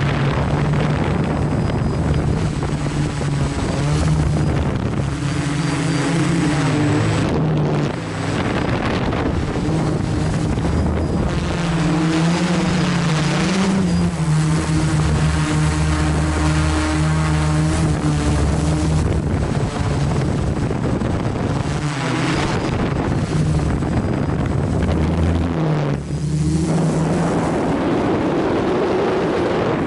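FPV quadcopter's motors and propellers buzzing steadily, heard from the camera on board, the pitch drifting up and down with the throttle.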